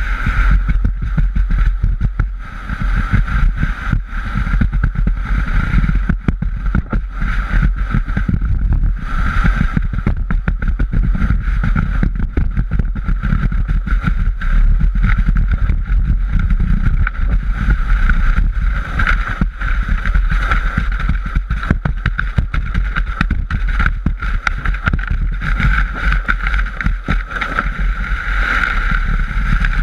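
A sandboard being towed over dune sand: the board's base sliding and scraping over the sand in a steady loud rush, with a low rumble and many rapid bumps, picked up by a camera mounted on the board's nose.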